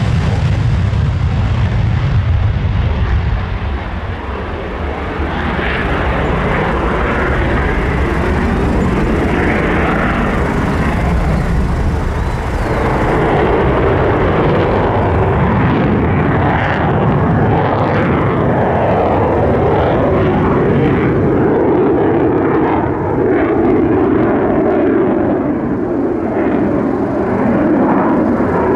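Twin General Electric F404 turbofan engines of an F/A-18C Hornet, a loud continuous jet roar through the takeoff and climb-out. The deep low rumble fades after about 13 seconds, leaving a steadier mid-pitched roar as the jet flies overhead.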